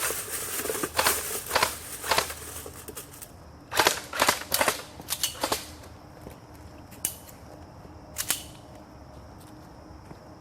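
Airsoft guns firing, about a dozen sharp snapping shots at irregular intervals, with a quick cluster of shots about four seconds in and single shots later on. A faint steady high whine runs under the second half.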